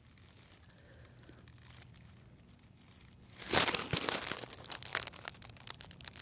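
Near silence, then from about three and a half seconds in, dry grass stalks crackling and rustling close against the microphone in irregular bursts.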